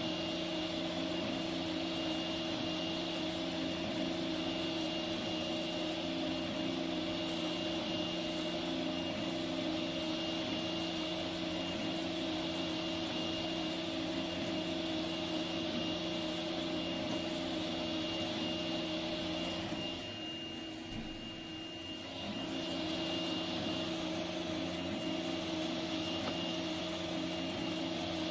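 FDM 3D printer running a print: stepper motors and cooling fans hum steadily with several held tones, dropping off briefly about twenty seconds in.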